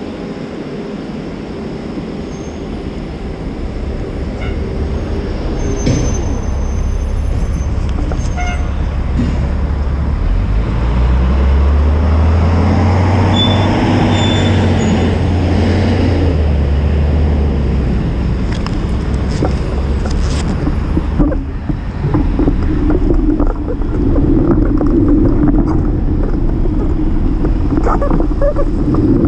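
City street traffic heard from a moving bicycle: a steady mix of road noise and low rumble. It grows louder about a third of the way in, with a low hum from a passing vehicle in the middle.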